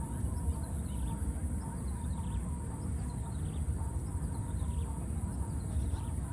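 Outdoor ambience: faint, repeated bird or fowl calls over a steady low rumble and a constant high-pitched hiss.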